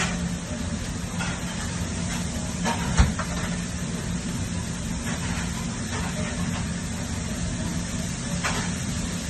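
Steady low hum with a hiss over it, broken by a few light clicks and one sharper knock about three seconds in.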